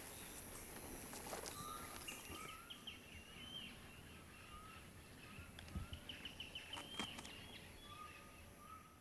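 Birds calling in a natural soundscape: repeated short rising whistles and quick runs of higher notes, over a steady high hiss, with a few soft knocks.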